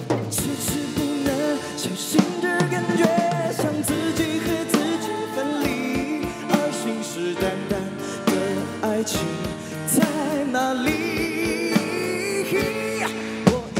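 Male singer singing a pop song live into a handheld microphone, backed by a live band with drum kit and keyboard.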